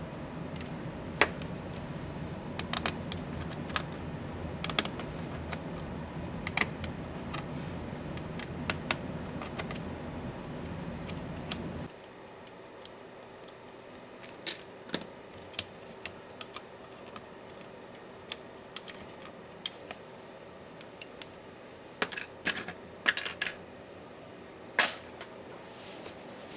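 Scattered sharp clicks and light taps of a small screwdriver, screws and plastic laptop parts being handled during a laptop teardown. A low steady hum underneath cuts off abruptly about twelve seconds in.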